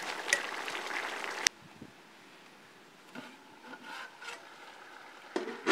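A large pot of goat intestine curry simmers and sizzles as a ladle stirs it. This stops abruptly about a second and a half in, leaving near quiet with a few faint knocks, then a sudden loud clatter near the end.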